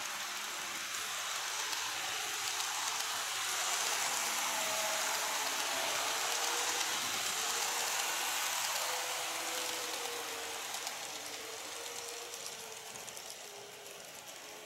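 Model train of a JR Kyushu 813 series electric multiple unit running along the track: a steady rolling hiss of wheels on rails with a faint motor hum. It grows louder as the train passes close and fades after about nine seconds.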